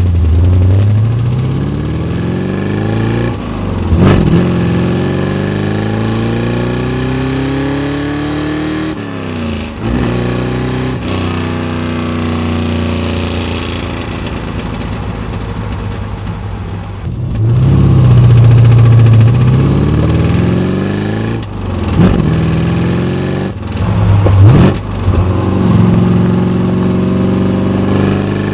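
1979 Chevrolet Corvette's L82 350 V8 with Hooker headers, heard from inside the cabin, accelerating repeatedly. Its pitch climbs, then drops and climbs again several times as it pulls through the gears of the four-speed manual. It is loudest about two-thirds of the way through.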